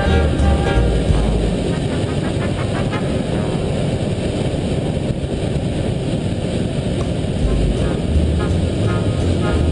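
Twin Wright R-2600 radial engines of a B-25 Mitchell bomber running loud and steady as the plane rolls along the runway, heard from inside the cockpit.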